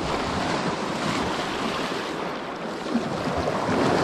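Steady rush of sea waves at the shore, with wind buffeting the microphone.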